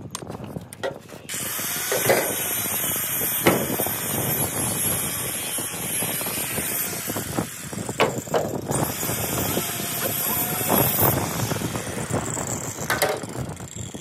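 Wooden formwork boards knocking and scraping as an edge plank is handled and set in place on roof-slab shuttering, a few sharp knocks over a steady hiss.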